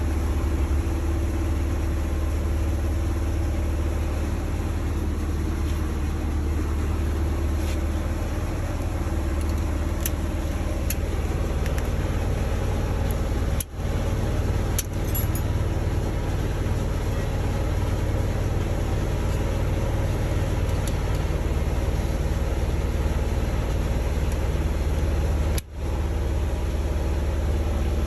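A steady low engine hum, like a vehicle idling nearby, with a few faint metallic clicks from tools at the hub. The hum cuts out briefly twice.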